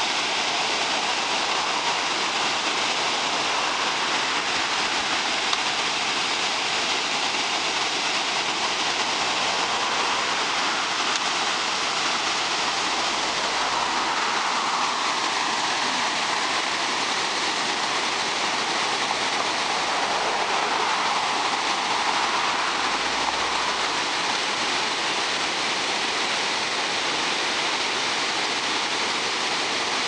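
Water pouring over a stepped concrete weir, a cascade of several low drops, making a steady, even rush.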